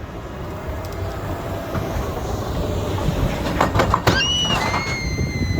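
Expedition Everest roller coaster train rolling along its track with a low rumble that grows louder and a short clatter about three and a half seconds in. A high, steady squeal starts just after the clatter.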